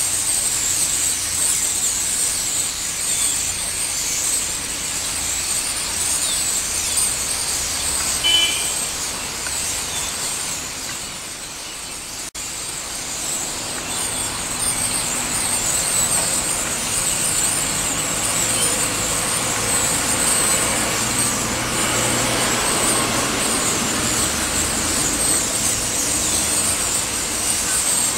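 A large flock of common starlings calling together in a dense, continuous high-pitched chatter of squeaks and whistles.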